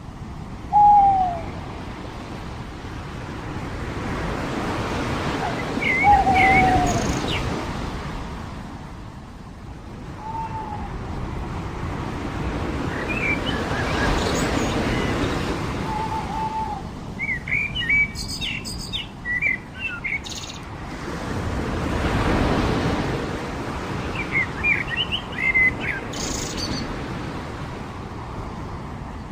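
Surf washing ashore in slow swells every several seconds, with birds calling over it: short falling whistled notes and quick clusters of higher chirps.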